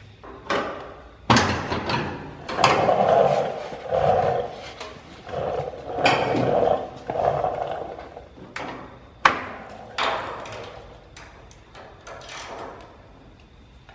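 A Fox-body Mustang door being worked by hand at its latch and hinges. Sharp metal clunks and clicks come throughout, with four drawn-out creaking groans in the first half. The latch won't readily let go, and the worn bottom hinge has weight resting on it.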